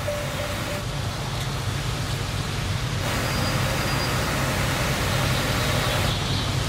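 Car and road noise heard from inside the cabin, steady and without words, growing louder and brighter about three seconds in.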